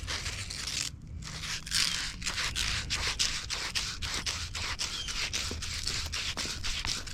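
Rapid, even scraping strokes, about four or five a second, as copper pipe fittings are scrubbed clean with a wire brush ready for soldering.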